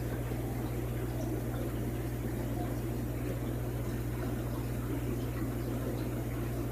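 Aquarium equipment running: a steady low electrical hum with a constant fizz of bubbling water over it.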